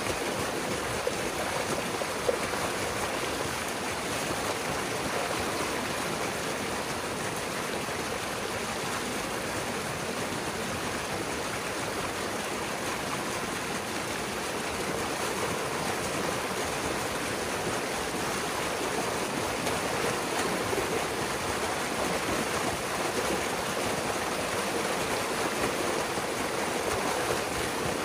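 Water rushing steadily through a breach opened in a beaver dam and pouring down over the sticks and mud below as the flooded pond drains.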